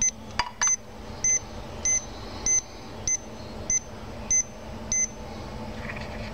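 Short high electronic beeps repeating evenly, a little under two a second, then stopping about five seconds in. There are a couple of light clicks near the start.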